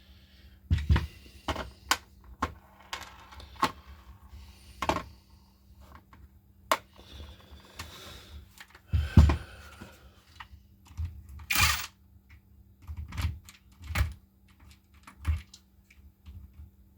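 Irregular clicks, taps and knocks of hands handling the plastic clamshell body, screws and screwdriver of a Makita DTD154 cordless impact driver being reassembled.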